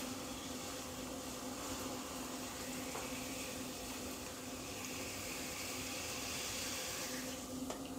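Potter's wheel motor humming steadily while wet hands shape the spinning clay, with a soft wet swishing of hands on clay over the hum.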